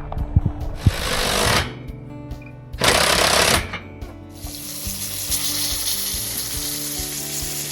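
Background music with two short bursts of rushing noise, then a steady hiss from about four seconds in.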